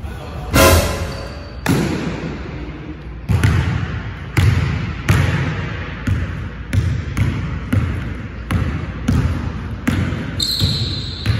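Basketball bouncing on a hardwood gym floor, each bounce echoing in the large hall: one loud ringing bounce about half a second in, then steady dribbling at about two bounces a second. A short high sneaker squeak on the wood near the end as a player drives.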